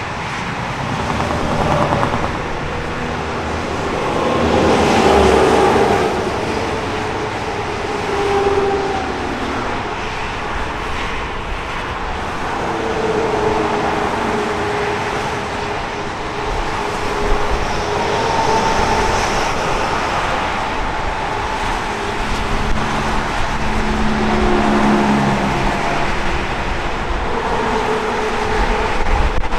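Heavy interstate highway traffic: a steady rush of tyres and engines, swelling louder as individual vehicles pass.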